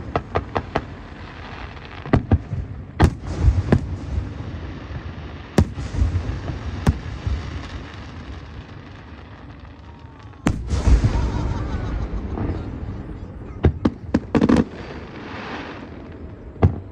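An aerial fireworks display: loud shell bursts bang at irregular intervals over a continuous crackling rumble. About ten seconds in, a large burst sets off a long crackle.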